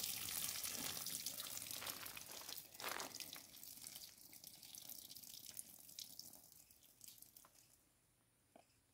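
Rinse water pouring out of a plastic bowl of fish pieces and splattering onto dirt ground, thinning to a trickle and scattered drips and stopping about three quarters of the way through.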